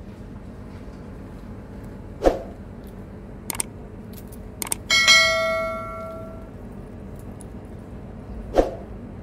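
Subscribe-button sound effect: two mouse clicks, then a bright bell chime that rings for about a second and a half before fading. A short, sharp sound comes about two seconds in and another near the end.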